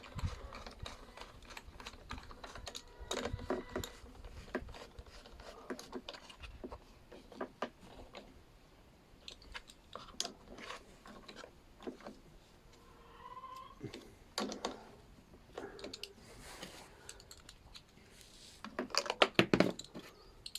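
Scattered light clicks and taps of small metal parts and hand tools while a lawnmower carburetor is being refitted and its bolts put in, with a few louder knocks near the end.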